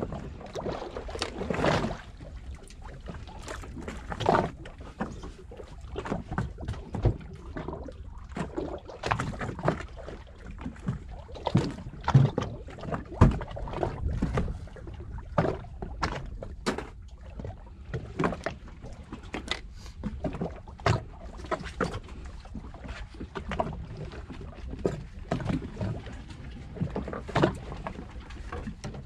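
Water slapping and knocking against the hull of a small fishing boat: irregular knocks every second or so over a steady low rumble.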